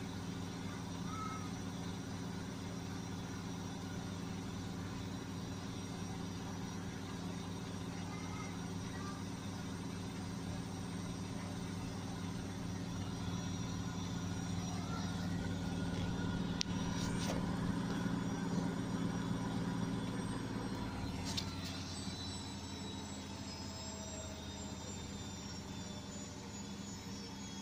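Beko washing machine on its spin-and-drain cycle: a steady motor hum with several tones that grows louder, then about twenty seconds in the low hum drops away and a whine falls slowly in pitch as the drum winds down. A few sharp clicks come near that change.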